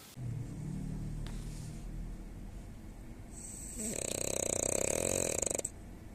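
Snoring: a quieter low breath at first, then a louder, rapidly pulsing snore from about four seconds in that cuts off suddenly near the end.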